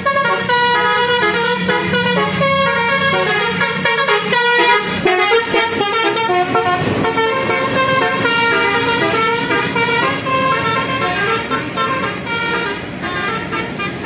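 A bus's basuri telolet horn, a multi-tone musical horn, playing a melody of quickly changing notes. It sounds loud and without a break as the bus passes.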